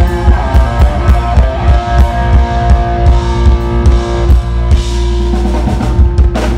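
Live rock band playing: a Gibson Les Paul electric guitar lead over a full drum kit, with one long note held through most of the stretch and cymbal crashes near the end.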